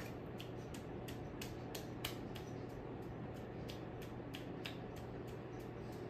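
Craftmade 52-inch ceiling fan running at speed: a steady motor hum with a light tick repeating about three times a second.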